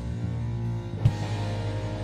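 Rock band playing live, instruments holding steady sustained notes, with one sharp drum hit about a second in.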